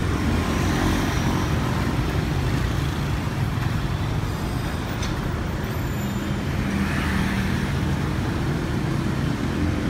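Road traffic: a city bus, cars and motorbikes driving past with their engines running, a steady rumble.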